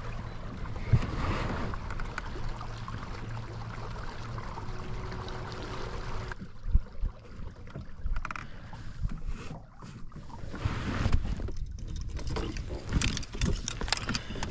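A Torqeedo 1103 electric outboard on a fishing kayak runs with a steady hum over water noise, stopping abruptly about six seconds in. After that come scattered knocks and clicks of fishing gear being handled on the kayak.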